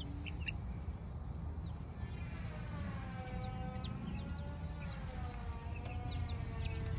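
Young chicks peeping in short high cheeps over a low steady rumble. From about two seconds in, a siren wails, its pitch slowly rising and falling.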